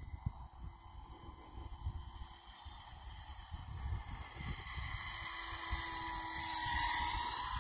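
Radio-controlled F-104 Starfighter model plane flying overhead, its motor giving a steady whine that grows louder as it comes close, about five seconds in. Wind rumbles on the microphone throughout.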